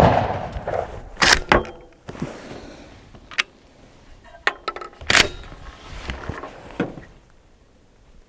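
The echo of a 12-gauge slug shot dies away, then a series of sharp metallic clicks and clacks as the straight-pull action of a Sulun Arms Tac-12 shotgun is worked by hand to chamber the next round.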